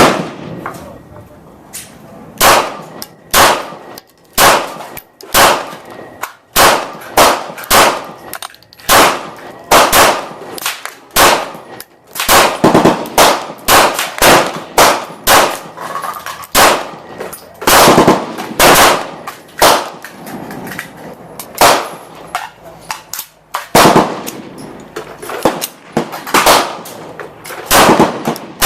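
Glock 19 9mm pistol firing TulAmmo 115-grain rounds in a long, steady string, about one to two shots a second with a couple of short pauses.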